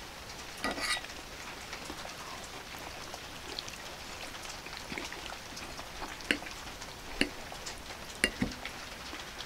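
A steady crackly hiss with several sharp clicks of a metal fork against a ceramic pasta bowl: a cluster near the start and four single clicks in the last few seconds.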